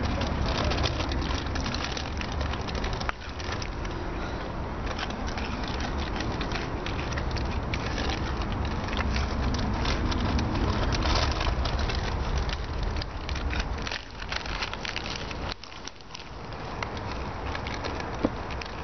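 Crinkling of foil chip bags and crunching of Cheetos over a steady low rumble of wind on the microphone, easing briefly near the end.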